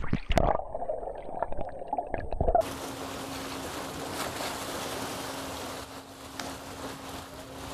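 Muffled underwater rushing of water with a few knocks, around a shark released from a submerged lifting cradle. About two and a half seconds in this changes suddenly to a steady rush of water with a low steady hum under it.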